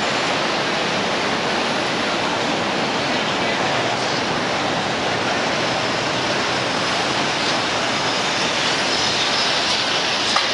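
CTA Morrison-Knudsen 3200-series rapid-transit train running into an elevated station: a steady loud rush and rumble of steel wheels on the rails, with a single sharp clack near the end.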